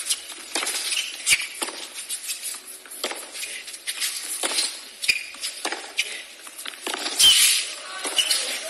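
Tennis rally on a hard court: tennis balls struck by rackets in a run of sharp hits, with brief squeaks of shoes on the court.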